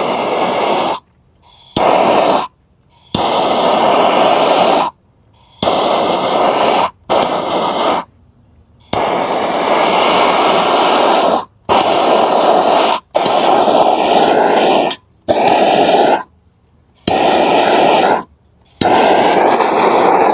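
Handheld gas torch flame roaring in repeated bursts of one to three seconds, cutting off sharply between them, as it scorches the surface of carved wood to darken it.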